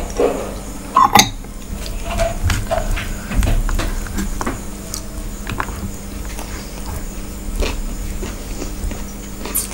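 Close-miked eating sounds: fingers mixing rice and curry on a steel plate, and chewing, with scattered small clicks and taps. Two sharper clicks come about a second in.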